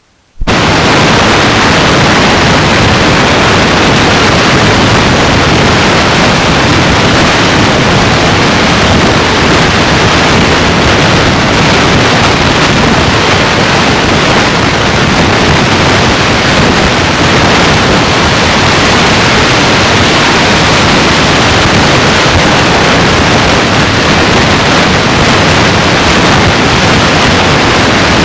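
Loud, steady hiss of static, like white noise, cutting in abruptly about half a second in and holding at an even level, with no voice, tone or rhythm in it.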